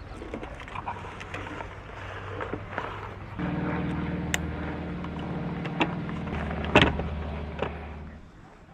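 A steady motor hum starts about three seconds in and stops shortly before the end, with scattered clicks and knocks around it.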